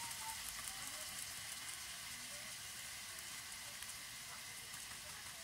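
Cubes of beef heart frying in their own rendering fat in a wok: a steady sizzle with light crackling.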